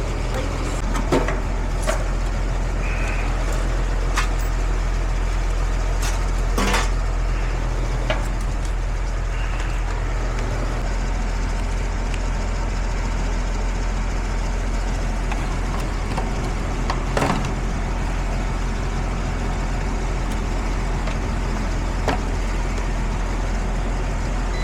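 Steady low machine hum throughout, with a scattered series of short knocks and clicks; part of the low hum drops away about halfway through.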